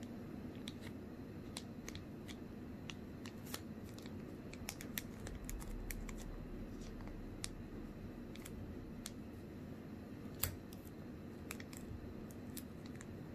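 Stiff paper crackling and clicking in scattered sharp bursts as fingers fold and crease a small red-and-white striped paper cup, with one louder snap about ten seconds in.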